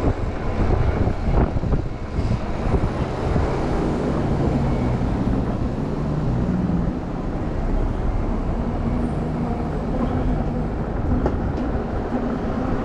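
Riding noise from a Super73 electric bike: steady wind rumble on the handlebar microphone mixed with tyre noise on brick paving. A faint low hum comes and goes in the middle.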